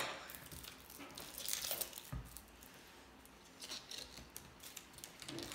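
Foil wrapper being torn open and crinkled by hand, in a few short spells of crackling with quieter gaps between.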